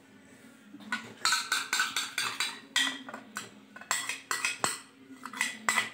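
A metal spoon clinking and scraping against a ceramic bowl in a quick, irregular run of clicks, starting about a second in, as beaten egg is scraped out of the bowl.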